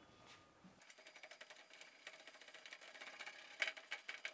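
Microfiber towel rubbing degreaser across the stainless steel inside of a grill lid: a faint, fast rubbing that starts about a second in and grows louder near the end.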